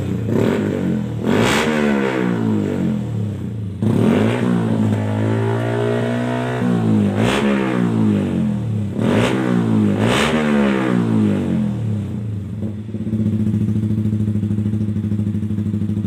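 Yamaha MT-15's single-cylinder four-stroke engine breathing through an aftermarket slip-on exhaust, revved in about six sharp throttle blips that fall back toward idle, one held a couple of seconds, then idling steadily for the last few seconds.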